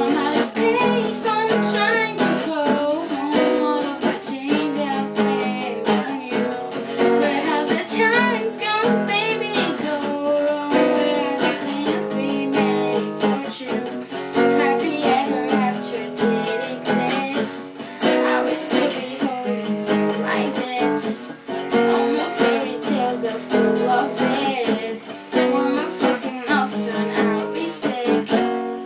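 A female voice singing a pop melody over strummed acoustic guitar.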